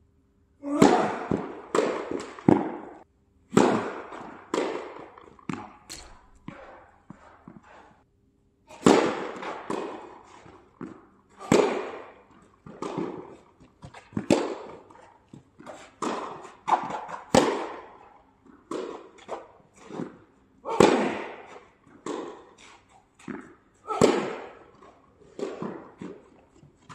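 Tennis balls struck by racquets and bouncing on the court, a quick irregular run of sharp hits, each ringing on briefly, with short lulls about three and eight seconds in.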